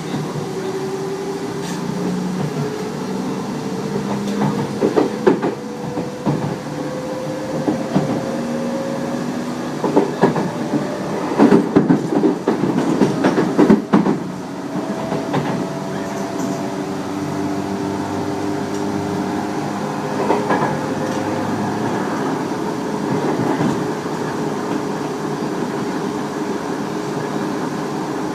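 Tobu 30000 series electric train under way, heard from inside the car: the traction motors give a whine that rises slowly in pitch as the train gathers speed, and the uploader believes these are permanent-magnet synchronous motors. The wheels clatter loudly over rail joints or points about ten to fourteen seconds in.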